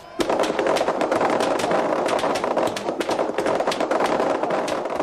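Crowd applauding at the end of a game: many hands clapping in a dense, steady patter.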